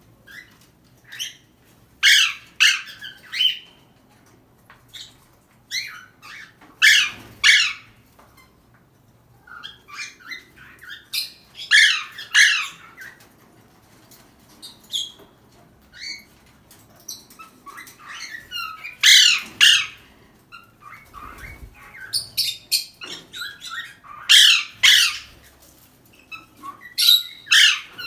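Pet parrot squawking and calling in loud bursts of harsh, rapid calls. The bursts come in clusters every few seconds, each lasting a second or two.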